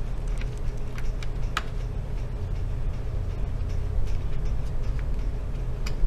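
A few faint clicks of small wires and plastic parts being handled inside an opened laptop, over a steady low hum.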